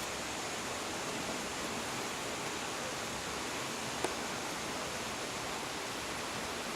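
Waterfall rushing, a steady even roar of falling water, with a single brief click about four seconds in.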